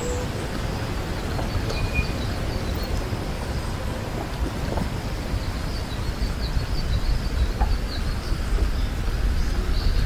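Low, steady wind rumble on the microphone, with small birds chirping in the trees: short high chirps repeating every second or so.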